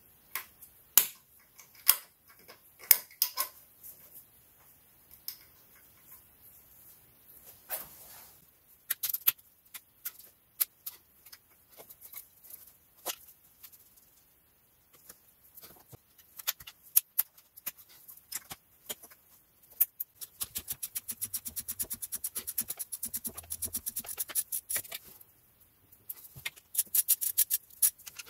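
Hand tools clicking and tapping on metal in sharp, irregular clicks. About twenty seconds in comes a fast, even run of clicks lasting about five seconds.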